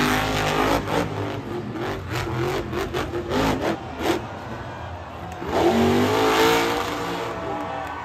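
Monster truck supercharged V8 engines revving hard, the pitch rising and falling as the throttle is worked, with the loudest climbing rev past the middle. Several sharp knocks in the first half, from the trucks landing and slamming into the dirt.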